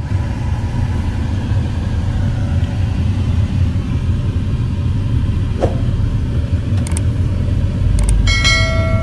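Steady low rumble of engine and road noise inside a moving car's cabin. Near the end comes a click and a short bell-like chime, the sound effect of a subscribe-button overlay.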